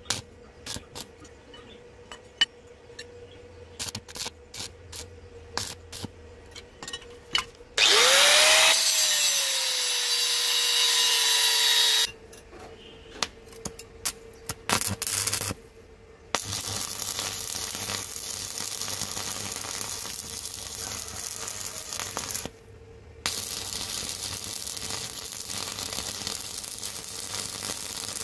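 Stick (shielded metal arc) welding on mild steel: the arc is struck with short scratches and sputters, then runs as a sustained crackling hiss in three stretches, the first and loudest about four seconds long, the last two several seconds each, all over a steady electrical hum.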